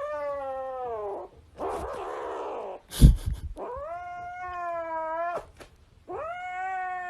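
A cat yowling in long drawn-out calls, one after another, each lasting one to two seconds, with a sharp loud knock about three seconds in.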